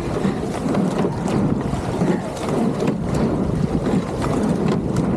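Racing rowing shell under way: steady wind buffeting the microphone over rushing water. A click comes about every second and three-quarters, once per stroke, from the oars working in their gates.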